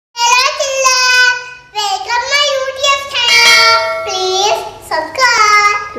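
A child singing a short melody in a high voice, with long held notes in four phrases.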